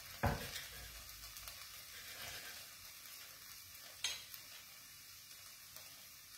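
Cutlery clinking against a plate twice, about a quarter second in and again about four seconds in, as a cooked chicken roll is cut open, over a faint steady hiss.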